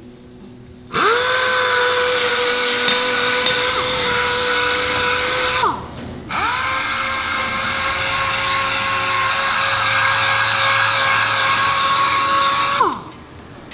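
Pneumatic random orbital sander working the machined metal of tiltrotator parts. It runs twice, about five and then six seconds, with a steady high whine over a hiss. Each run spins up quickly and winds down when the trigger is let go.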